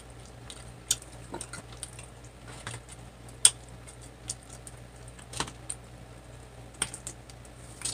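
Close eating sounds of fried chicken: irregular sharp clicks, smacks and crunches of chewing and of fingers pulling a wing apart, two of them louder about halfway through, over a faint low steady hum.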